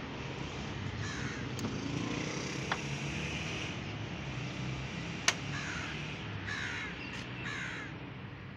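Crows cawing several times outdoors, with two sharp clicks, the second and louder one about five seconds in.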